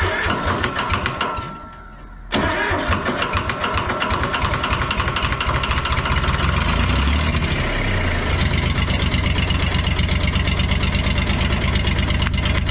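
Worn old truck engine cranked by its starter for about a second and a half. After a short lull it catches, bursts into life and runs with a rapid, even firing beat. It picks up speed for a couple of seconds, then settles to a steady run. The engine had no compression and only started because oil was put in the cylinders; it needs a rebuild.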